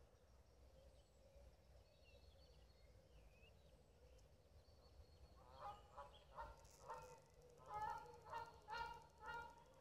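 Geese honking: a run of short calls, about two to three a second, starting about halfway through and getting louder. Before that there are only faint, thin bird chirps.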